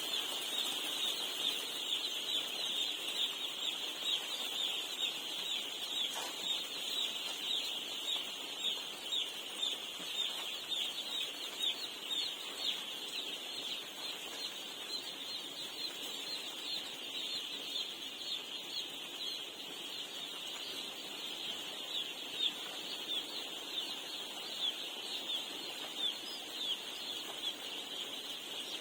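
A large flock of poultry chicks peeping without pause, many short high-pitched calls overlapping into a steady chorus.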